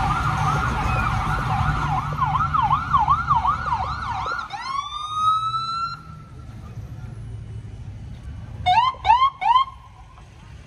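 Ambulance siren on a fast yelp that winds down in a falling wail about halfway through, then gives three short rising whoops near the end. Underneath, in the first half, is the low rumble of passing pickup truck engines.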